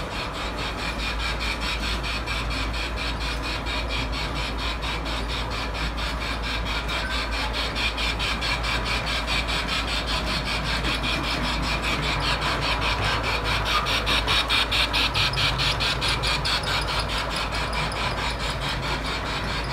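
Large-scale model steam locomotive and its wagons running along the track: motor, gears and wheels running with a fast, even ticking, growing louder as the train comes closer.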